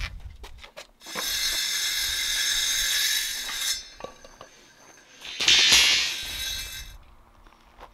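Steel rebar and tools being handled on a concrete slab: a few light metal clicks, then a steady rasping hiss for about three seconds, then a short, louder scrape just past halfway.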